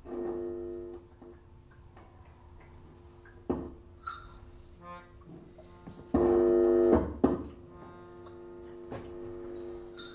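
Free improvised music: a loud, held instrumental chord that starts and stops abruptly, sounding twice for about a second each time (at the start and about six seconds in). Scattered knocks and clicks fall between and after the chords, and a fainter held tone lingers after the second chord.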